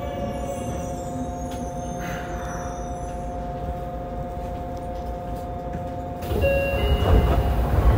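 Yokohama Municipal Subway 3000A train running, heard from inside the car: the Mitsubishi GTO-VVVF inverter gives a steady whine at two pitches over wheel and track rumble. About six seconds in the noise turns suddenly louder and rougher, with brief higher tones joining.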